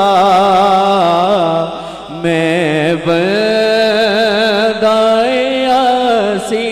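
Man singing a hamd (devotional praise poem to God) into a microphone, drawing out long ornamented notes with wavering pitch and a short break about two seconds in.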